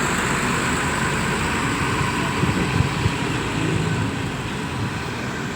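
Coach bus engine running as the bus moves off, a steady low rumble mixed with road noise that grows a little quieter near the end.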